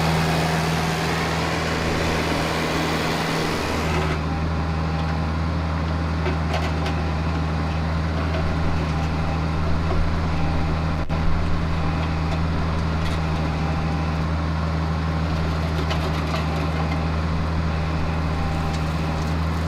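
Diesel engine of a backhoe or mini excavator running steadily with a low, even drone. A higher hiss over it stops about four seconds in.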